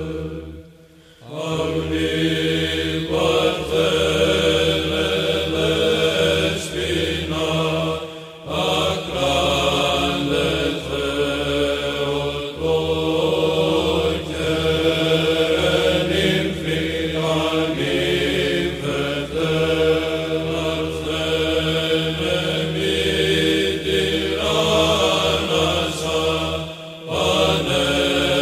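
Background music: chanting voices holding long notes over a steady low drone, with short pauses about a second in, near eight seconds and near the end.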